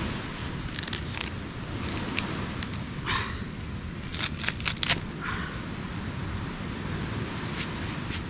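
Dry coconut husk being torn apart by hand, with scattered cracks and a quick run of loud, sharp cracks about halfway through. A short chirp-like squeak comes just before, over a steady wash of surf and wind.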